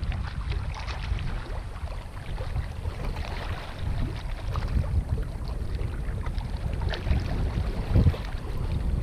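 Wind buffeting the microphone as an uneven low rumble, with a few faint ticks scattered through it.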